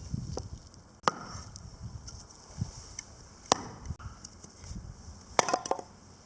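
Firewood being chopped on a wooden chopping block: three sharp strikes about two seconds apart, the last followed by several quick smaller knocks.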